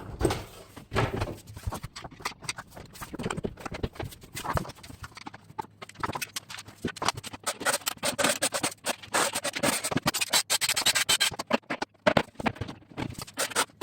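Rapid, irregular clicking and knocking of hard parts being handled and fitted, thickest in the second half.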